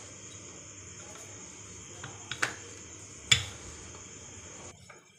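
Rolling pin working roti dough on a wooden board over a steady background hiss, with two sharp knocks about a second apart midway, the second the louder.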